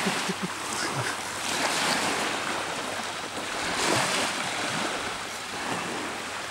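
Small waves washing in at the water's edge, swelling and fading every couple of seconds, with some wind on the microphone.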